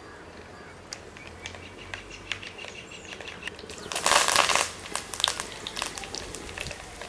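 Mustard seeds popping and crackling in hot oil in a clay pot, with sharp scattered pops from about a second in. About four seconds in, curry leaves hit the oil and it sizzles loudly for about half a second, then the popping goes on.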